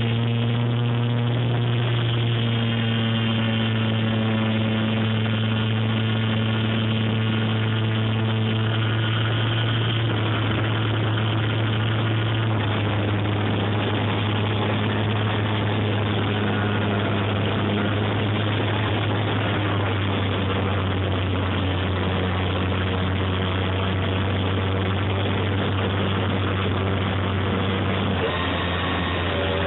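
Electric motor and propeller of a Dynam Corsair RC model plane in flight, heard from its onboard camera: a steady, loud droning whine with airflow hiss. The pitch drops a step at about twelve seconds in and again near the end as the throttle is eased back.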